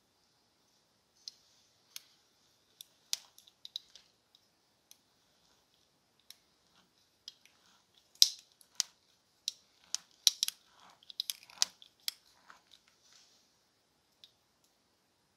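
Hinged aluminum grapefruit corer being pushed into and twisted in a half grapefruit: scattered sharp clicks and juicy crunches of the blades cutting through the fruit. A few isolated clicks come first, then a dense cluster of crunches about halfway through.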